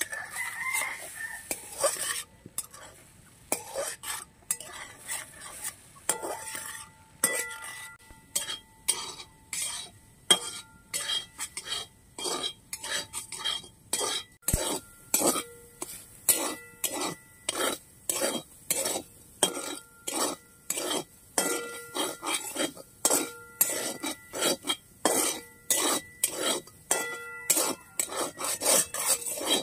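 Long metal spatula scraping and stirring snails in a large metal wok, strokes about twice a second that set the pan ringing, over a light sizzle of frying.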